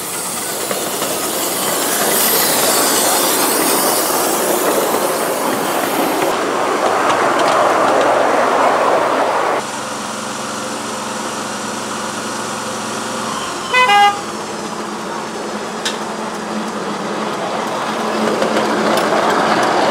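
Miniature steam locomotive hissing steam as it moves off with passengers. After a sudden cut, a miniature diesel-outline locomotive runs with a steady engine drone, a short loud horn toot comes about two-thirds of the way through, and the engine grows louder near the end as a locomotive approaches.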